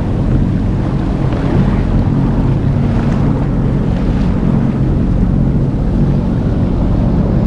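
Jet ski engine running at a steady speed, with wind buffeting the microphone and water rushing and splashing around the hull.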